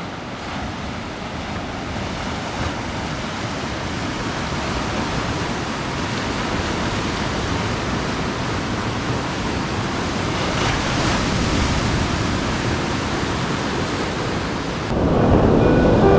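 Ocean surf rolling in on the beach, a steady rushing wash of waves. Music comes in near the end.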